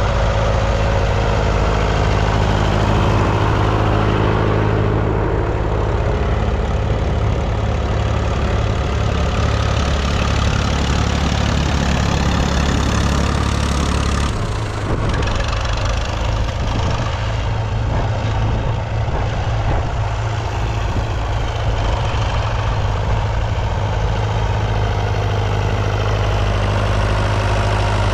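Classic Massey Ferguson tractor engine running steadily. About halfway through, its deepest note drops away and the sound turns rougher.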